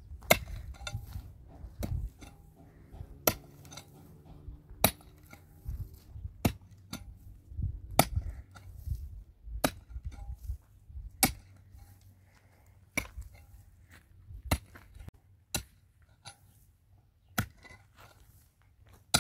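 Sharp strikes of a hand tool on hard material, coming steadily about once every one and a half seconds, with fainter clinks and knocks between.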